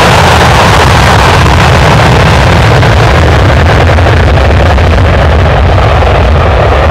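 Dassault Falcon 8X's three Pratt & Whitney Canada PW307D turbofans at takeoff power during the takeoff roll: loud, steady jet noise with a deep rumble underneath. The hiss on top fades near the end as the jet moves away.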